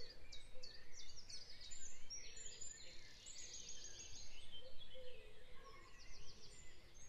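Recorded dawn chorus: many birds chirping and trilling together, faint, over a low steady hiss.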